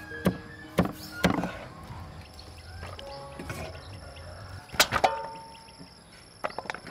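Cleaver knife chopping through geoduck clam onto a wooden cutting board: sharp knocks three times in the first second and a half, then two louder knocks about five seconds in, the second with a brief ring.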